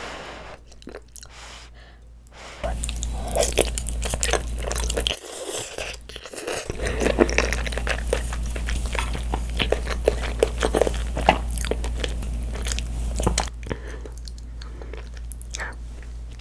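Close-miked eating sounds of a child slurping in cream-sauce spaghetti and chewing it, with a dense run of wet clicks and smacks. It gets loud about three seconds in and drops back near the end.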